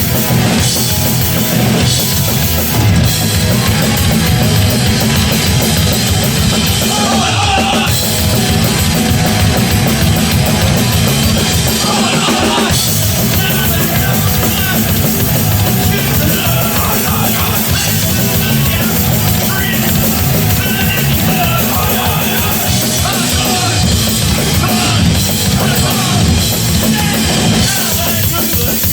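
Live hardcore punk band playing loud and without a break: drum kit, distorted electric guitar and bass.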